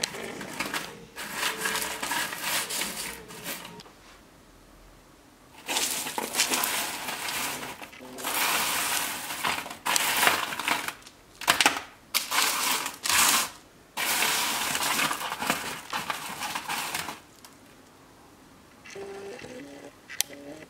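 Crunchy baked oat granola clusters crackling and crunching as a hand rummages through and breaks them on a parchment-lined baking tray, in a series of bursts with short pauses between; the crunch is the sign of granola baked to a dark, super-crispy finish.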